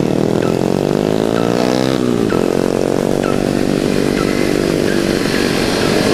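Kawasaki Ninja 250 motorcycle engine accelerating under load: its pitch climbs, drops sharply at an upshift a little past two seconds in, then climbs again and levels off.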